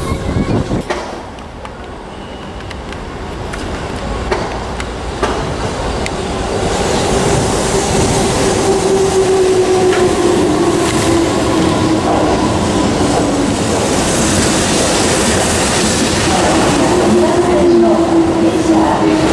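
Keihan 8000 series electric train pulling into the station. Its running noise grows louder as it nears, under a steady motor whine that sinks slowly in pitch as it slows.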